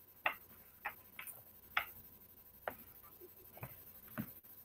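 About seven faint, irregular clicks and taps over quiet room tone.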